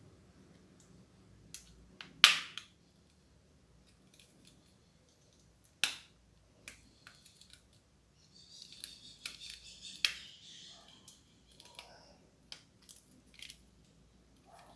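Sharp clicks and taps of small hard objects being handled, three of them loudest, with a stretch of scratchy rustling about eight to ten seconds in.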